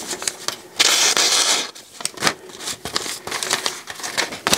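A knife blade freshly honed on a ceramic rod slicing through a sheet of notebook paper. The slice comes about a second in and lasts nearly a second, a hissing rasp, followed by paper rustling and small clicks as the sheet is handled. The paper-cutting test shows the edge is back to cutting paper.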